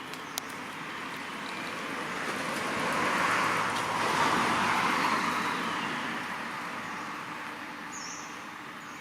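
A road vehicle passing by: its tyre and engine noise swells to a peak a few seconds in and then fades away.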